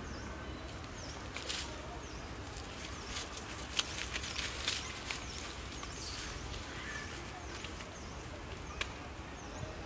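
Outdoor ambience: short high chirps repeat every so often over a low steady rumble, with a cluster of sharp crackles and clicks between about one and five seconds in.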